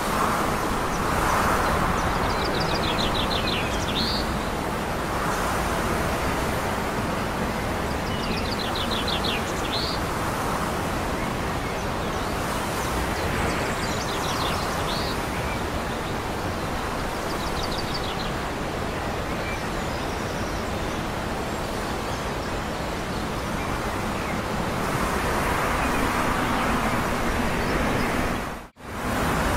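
Steady rumble of a distant freight train under outdoor noise, with a small bird's quick high trills about four times. The sound drops out for a moment near the end.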